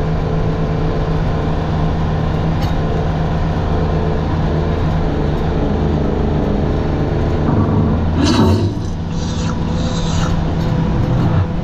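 Honda side-by-side's engine running at a steady pace while driving on a dirt track, heard from the open cab. There is a brief louder noise about eight seconds in.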